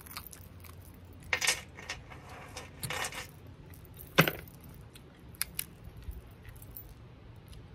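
Boiled crab legs being cracked and snapped apart by hand: short crunches of shell, then one sharp crack about four seconds in and a few small clicks after it. Metal bangles on the wrist jangle with the hand movements.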